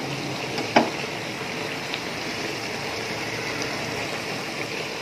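Pepper rasam in a pot on the stove coming to a light boil: a steady hiss, with a single click about a second in.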